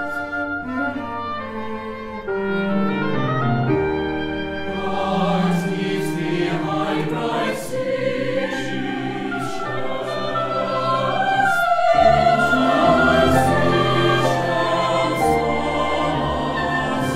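Mixed choir singing a slow classical choral piece accompanied by cello, oboe and piano. The instruments play alone at first, and the music grows fuller about two seconds in as the choir comes in.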